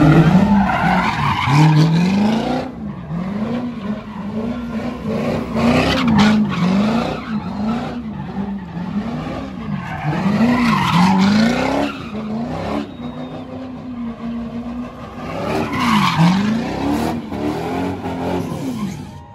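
A car engine revving up and down over and over, its pitch rising and falling about once a second, while the tyres skid and squeal. The noise swells several times as the car keeps spinning.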